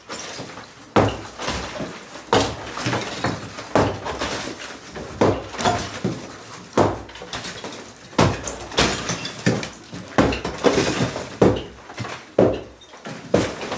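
Gypsum-block partition wall being demolished: irregular heavy blows, one every half second to second and a half, each followed by crumbling and clattering pieces of block.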